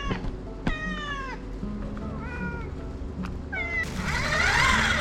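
A cat meowing several times, short calls falling in pitch, then a louder, rougher call about four seconds in.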